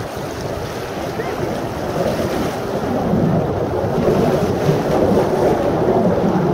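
Rumbling roar of a formation of Aermacchi MB-339 jets with Rolls-Royce Viper turbojets, growing louder about two seconds in as the formation passes.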